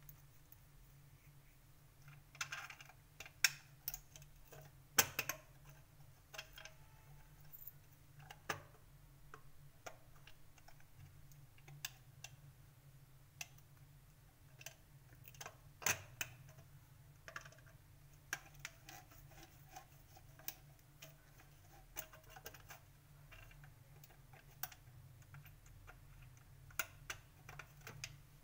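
Irregular light clicks and taps of a plastic switch-board plate being handled and worked on with a screwdriver, a few sharper knocks among them, over a low steady hum.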